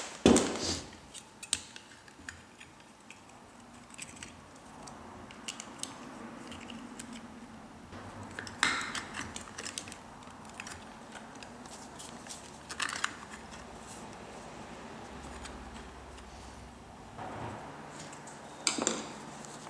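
Clicks, knocks and light rattles of lamp parts being handled as the lamp is reassembled: its metal base, wiring and plastic end cap. The louder knocks come just after the start, at about 9 and 13 seconds in, and near the end as the black end cap is fitted.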